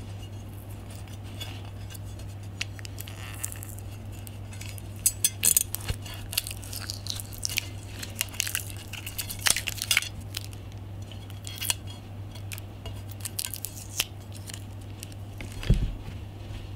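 A brushed-nickel metal switch wall plate and its small metal screws being handled: scattered light clicks and taps as the screws are worked out of the plate and set down, with a heavier knock near the end, over a steady low hum.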